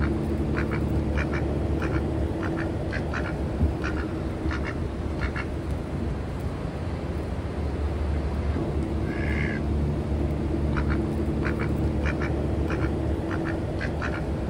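Domestic ducks quacking in runs of short, quick calls, one run from about half a second in to about five seconds and another near the end, over a steady low hum.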